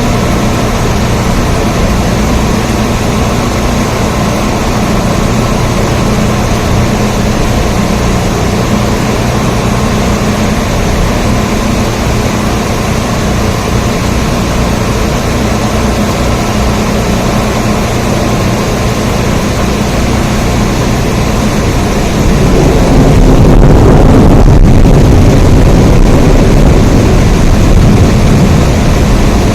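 Steady, heavy rain noise. About two thirds of the way through, a low rumble swells up for several seconds and then eases back.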